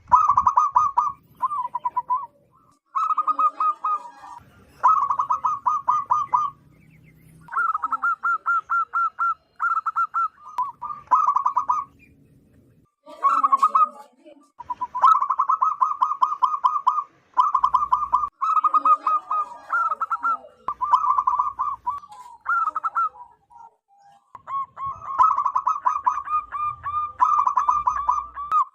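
Zebra dove (perkutut) cooing loudly: phrases of rapid staccato coos, each a second or two long, repeated with short pauses.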